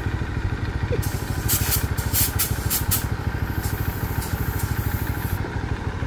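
Small step-through motorcycle engine idling with a steady, rapid pulse, with a few short bursts of hiss over it.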